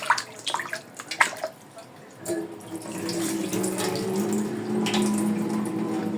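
Kitchen tap running into a sink as raw chicken pieces are rinsed: splashing and a few knocks in the first second or so, then the water runs steadily and louder from about two seconds in.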